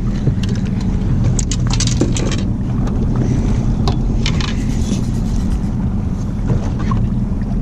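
Steady low rumble on a small boat, with a few short knocks and rattles about one and a half to two and a half seconds in and again near four seconds, as the landing net is picked up and handled.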